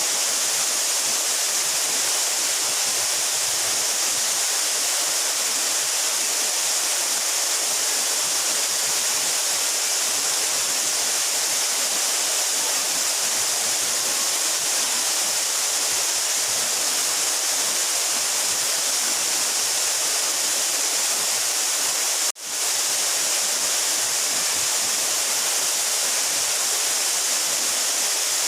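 Steady, unbroken rush of water falling from a 12-metre mountain waterfall, strongest in its high hiss. About two-thirds of the way through, the level drops sharply and recovers within half a second.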